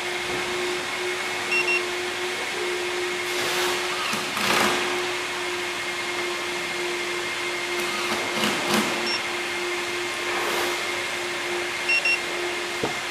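A steady whirring hum with a low held tone, like a blower running, under two short high double beeps, one about a second and a half in and one near the end, that fit the KGB G-5 alarm key fob signalling that the car has been armed or disarmed. A few soft clicks and rustles come in between.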